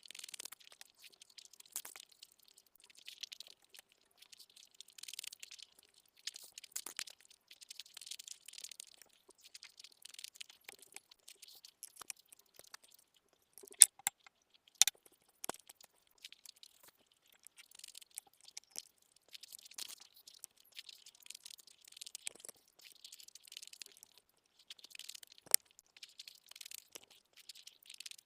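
Close-miked chewing and wet mouth sounds of someone eating egg curry with rice, coming in short repeated bouts. Two sharp clicks stand out about halfway through and one more near the end.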